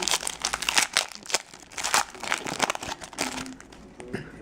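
Foil wrapper of a Yu-Gi-Oh booster pack crinkling and tearing as it is handled and opened. There are rapid, irregular crackles that thin out over the last second or so.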